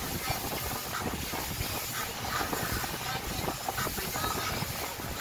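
Pontoon boat under way at speed: a steady rush of wind and water with the boat's motor running underneath.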